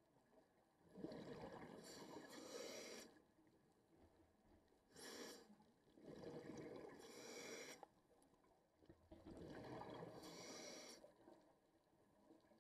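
A scuba diver breathing through a regulator, heard underwater: three breath cycles about four seconds apart, each a couple of seconds of rushing air and gurgling exhaled bubbles.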